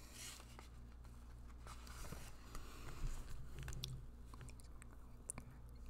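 Faint close-microphone mouth sounds: scattered soft clicks and lip smacks from inaudible reading, words mouthed without voice.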